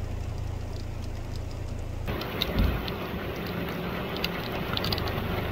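Heavy rain falling, with a low steady rumble beneath it; about two seconds in, the sound changes to rain hitting shallow running floodwater: a fuller hiss with scattered splashing drops.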